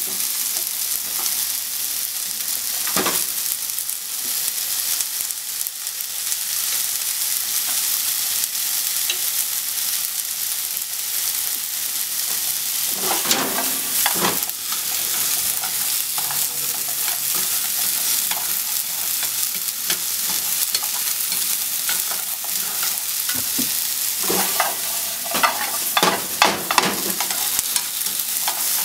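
Sliced onions sizzling steadily in a hot non-stick frying pan. Now and then wooden chopsticks stir them, scraping and clattering against the pan: about 3 seconds in, around the middle, and again near the end.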